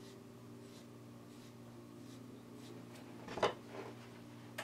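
Paper towel crinkling as it is picked up and handled, loudest for a moment about three and a half seconds in, after faint soft handling sounds of a small wooden spoon. A low steady hum lies underneath.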